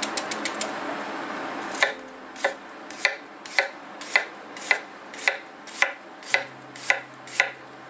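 Kitchen knife slicing an onion on a cutting board: a run of about eleven even knife strokes, a little under two a second, each a crisp knock of the blade against the board, starting about two seconds in.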